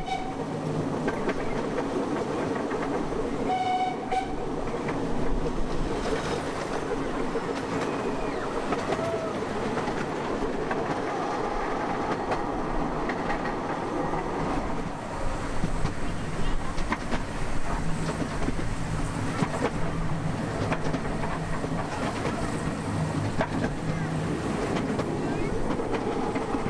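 Miniature park railway train running, heard from an open carriage: a steady rumble with clattering of wheels on the track. The locomotive gives a short toot about four seconds in.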